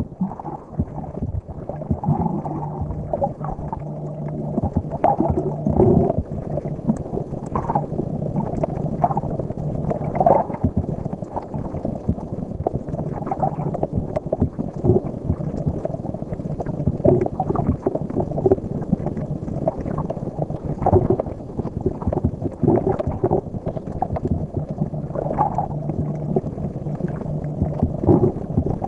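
Underwater sound picked up through a camera in the sea: muffled water noise with scattered bubbling pops and clicks. A steady low hum runs through the first half and again near the end.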